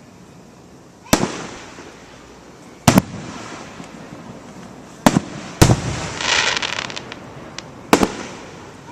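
Aerial fireworks shells bursting: sharp booms about a second in, near three seconds, twice around five seconds and near eight seconds, each trailing off briefly. A burst of crackling comes between the last two booms.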